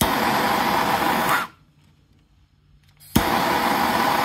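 Handheld propane torch flame hissing steadily as it heats the solder joint of a brass ball valve on copper pipe. The flame cuts off suddenly after about a second and a half, then is relit with a sharp click about three seconds in and hisses on.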